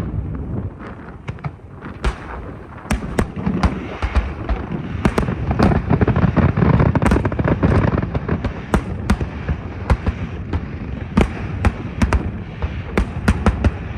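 Fireworks display: a rapid, irregular run of sharp bangs over a continuous low rumble, densest and loudest in the middle.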